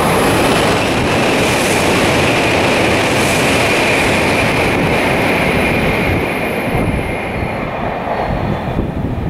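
Kyushu Shinkansen bullet train passing through the station without stopping at about 260 km/h: a loud rush of air and wheel-on-rail noise with a steady hiss over it, easing off over the last few seconds as it recedes.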